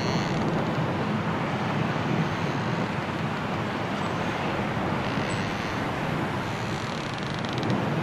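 Strong wind of a snowstorm blowing steadily.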